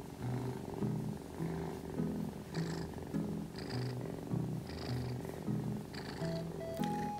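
Kitten purring while being petted, under background music with a gentle melody of notes changing about twice a second.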